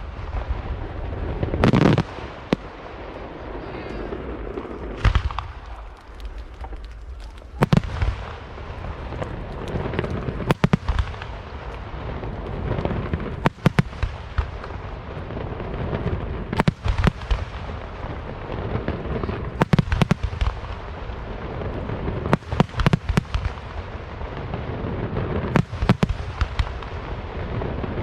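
Aerial fireworks display: firework shells bursting with loud bangs, a heavy burst about two seconds in, then clusters of quick cracking reports every few seconds.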